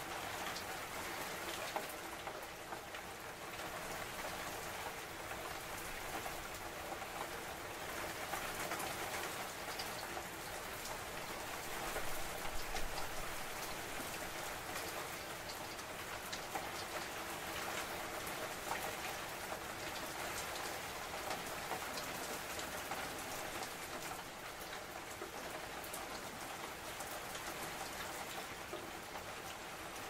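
Steady rain falling: a continuous hiss with sharp ticks of individual drops scattered through it. It swells briefly louder about twelve seconds in.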